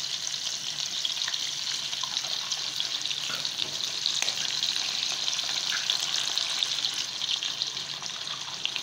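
Sliced sucuk sausage frying in its own rendered fat and butter, with a steady sizzle, as raw eggs are cracked into the pan; a few faint clicks sound through the sizzle.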